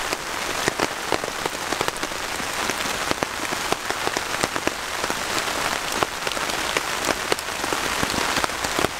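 Heavy rain heard from under a camping tarp: a steady hiss of rainfall with many sharp, separate drops striking the tarp close overhead.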